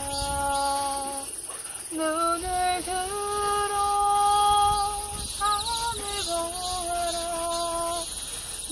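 A voice singing a Korean CCM worship song, holding long notes that step from one pitch to the next, with a short break about a second and a half in.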